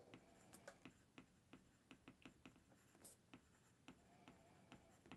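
Faint, irregular ticks and light scratches of a stylus on a tablet screen as words are handwritten.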